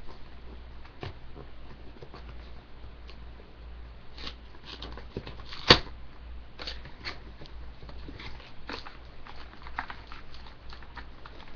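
A sealed box of 2013-14 Prizm hockey card packs being opened and emptied: scattered crinkling, rustling and small clicks of wrapper and cardboard, with one sharp snap about halfway through.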